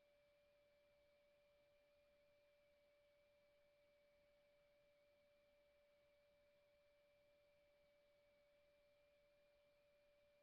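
Near silence: a faint, steady high tone over low hiss, unchanging throughout.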